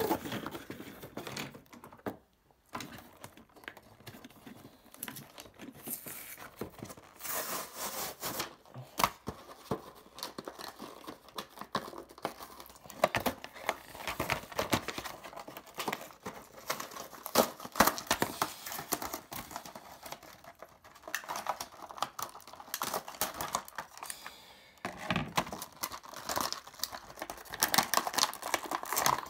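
Plastic and paper toy packaging being handled and pulled apart: irregular crinkling, crackling and tearing with scattered clicks, pausing briefly about two seconds in.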